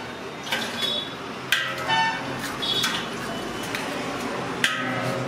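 Eggs cracked against the rim of a large aluminium pot: several sharp shell cracks.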